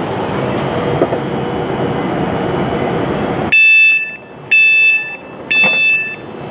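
Class 390 Pendolino's door warning alarm sounding three loud electronic beeps, about one a second, which signal that the doors are closing. Before it, the train's vestibule hums steadily.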